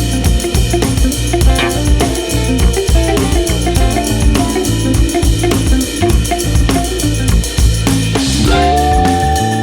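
Background music with a steady drum-kit beat, bass drum and snare, over bass and guitar notes; a held note comes in near the end.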